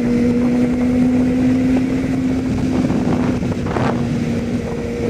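Kawasaki ZZR400N motorcycle's inline-four engine running at a steady cruising speed, its note holding one pitch, with wind rushing past.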